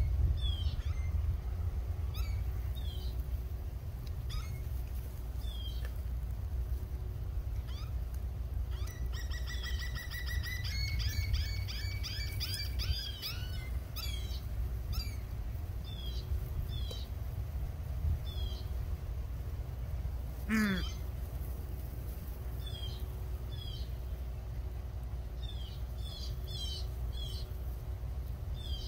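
Birds calling: short high chirps every second or two, a dense stretch of overlapping calls in the middle, and one call sliding down in pitch about two-thirds of the way through, over a steady low rumble.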